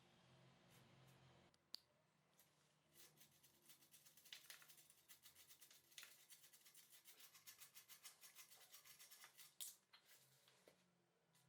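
Faint rapid back-and-forth scrubbing strokes by hand, about five a second for several seconds, with a single sharp click before them and a sharp knock as they stop.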